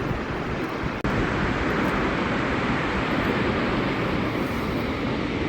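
Dettifoss waterfall: a steady rush of falling water, with a very short break about a second in.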